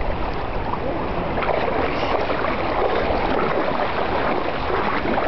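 Shallow sea water sloshing and lapping in small waves, a steady rush of water.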